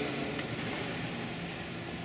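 Congregation getting to its feet from wooden pews: a steady rustle and shuffle of clothing and feet.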